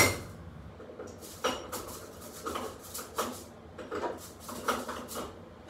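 Metal clanks and clicks of a gas stove's burner caps and grates being handled and set in place on the stovetop, a sharp one right at the start and about half a dozen lighter ones after it at uneven intervals.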